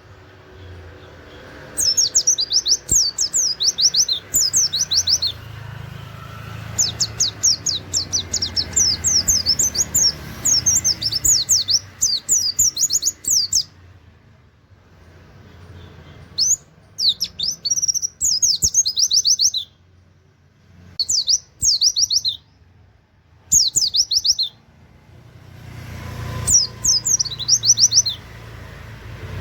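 Pleci (white-eye) singing its rapid-fire song: quick runs of high, downward-slurred notes in phrases of a few seconds, broken by short pauses, about six phrases in all.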